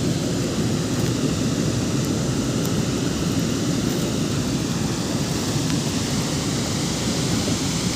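Steady, loud rushing noise, strongest in the low range, holding even throughout.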